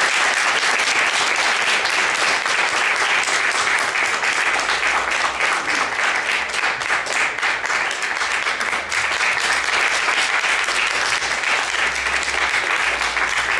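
Audience applauding, many hands clapping together at an even level.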